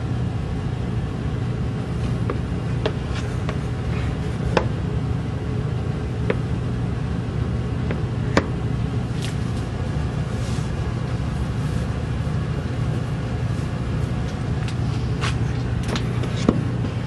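A steady low hum runs throughout, with scattered light clicks and knocks, some of them as the old wooden bellows is picked up and handled in the second half.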